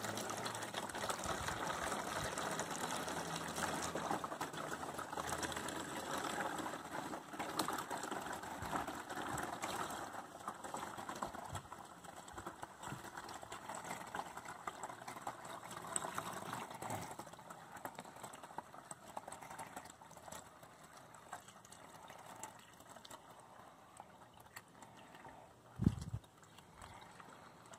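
Distilled water pouring through a funnel into a plastic jug of coolant concentrate: a steady trickle that dies away about two-thirds of the way through. One short knock near the end.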